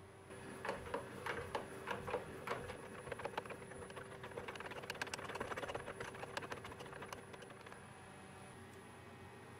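Mechanical clicking from machinery, a couple of clicks a second at first, then faster and denser in the middle before thinning out near the end, over a steady faint hum and a thin high whine.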